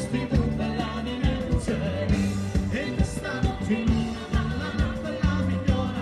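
Live band playing upbeat Calabrian folk dance music with a steady beat, a held bass line and a singing voice.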